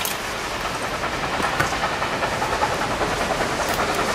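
Steam locomotive approaching under power, its exhaust chuffing in an even rhythm that grows steadily louder.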